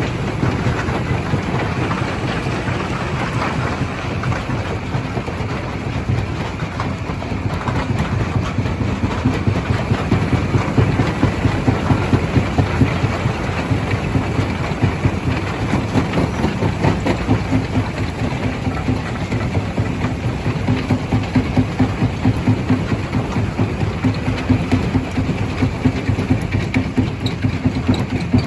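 Stone crusher machine running, its motor humming under a steady crunching and rattling of rock, with a rapid regular pulse of about three beats a second.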